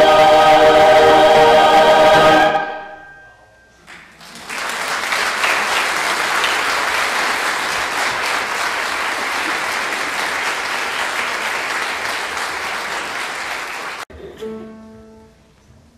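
A mixed choir holds its final chord and cuts off about two and a half seconds in. After a short pause the audience applauds steadily for about ten seconds, stopping abruptly, and a few faint held notes follow near the end.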